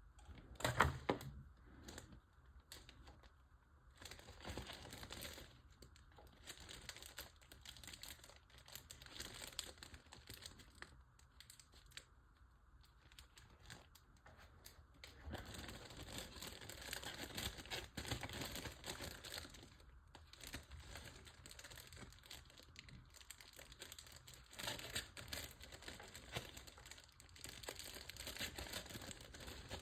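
Packaging crinkling and rustling in irregular bursts as small model-kit parts are handled and unpacked, with a sharp click about a second in.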